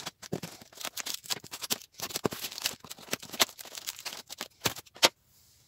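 Scissors snipping through a paper-wrapped parcel, with the wrapping crinkling and rustling in quick, irregular cuts, ending in a sharp click about five seconds in.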